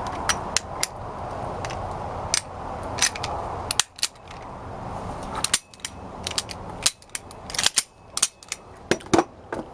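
Daewoo DP-51 9mm pistol's metal parts clicking and snapping as the reassembled pistol is handled: a couple of dozen sharp, irregular clicks, coming faster in the second half.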